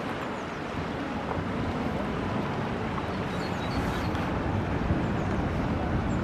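Steady outdoor rumble with wind buffeting the microphone, and a quick run of faint high chirps a little past halfway.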